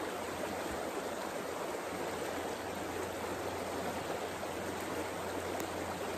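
Shallow river current running in a steady, even rush of water.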